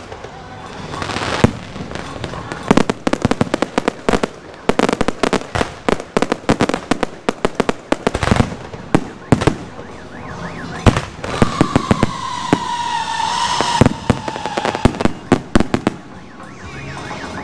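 Aerial fireworks going off: rapid bangs and crackling shell bursts. About two-thirds of the way through, a long high tone slides slowly downward. The bursts thin out near the end.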